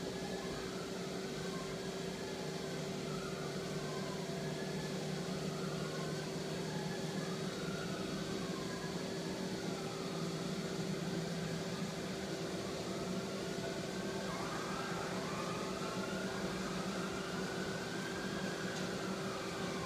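Daewoo Puma 12L-B CNC lathe running: a steady machine hum with a motor whine that rises and falls again and again, every second or two.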